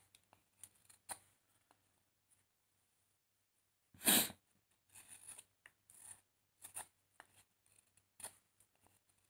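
Fixed-blade carving knife whittling wood: short slicing strokes as shavings come off, spaced irregularly, with one louder cut about four seconds in.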